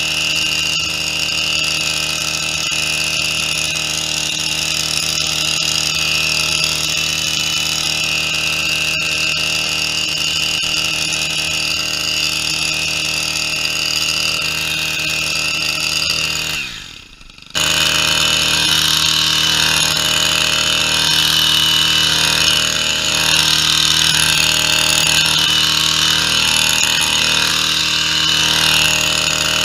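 Small two-stroke engine of a petrol long-reach pole hedge trimmer running steadily at high revs while cutting weeds and brambles. About two-thirds through, the engine note drops away for about a second, then comes back abruptly at full speed.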